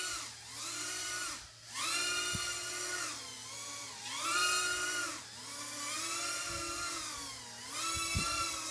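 Small brushless motors and propellers of a palm-size FPV quadcopter whining in flight, the throttle punched up and eased off over and over so the whine rises, holds and falls about every one to two seconds. The punches are done to draw electrical noise into the video feed.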